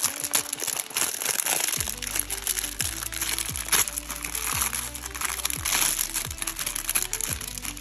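Clear plastic film crinkling as it is peeled and pulled off a trading-card blister pack, over electronic dance background music whose bass beat comes in about two seconds in.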